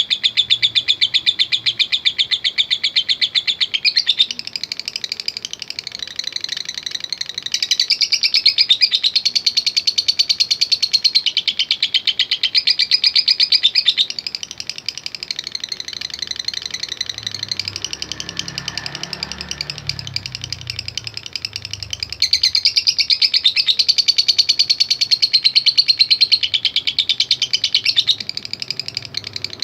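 Lovebird chattering in long, very rapid high-pitched trills (ngekek), a fast ticking run of chips held for several seconds at a time with brief breaks. There is a faint low rumble in the background around the middle.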